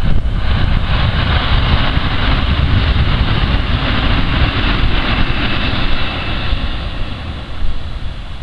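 Kintetsu 5820 series electric train running past on the tracks, its rolling noise fading as it draws away near the end, with wind buffeting the microphone.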